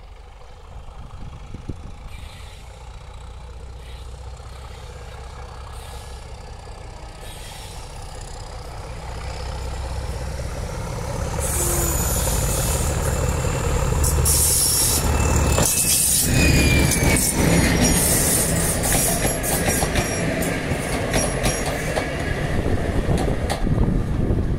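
Class 31 diesel-electric locomotive's English Electric V12 diesel engine thrashing hard under power as it approaches, growing steadily louder until it passes close by about fourteen seconds in. After that comes a brief squeal from the wheels and the clatter of wheels over rail joints as the hauled coaches roll past.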